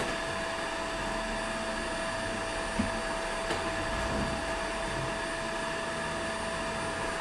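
Toshiba VC-BK750X vacuum cleaner running steadily during cleaning: an even rush of suction with a steady whine. A couple of brief knocks come about three seconds in.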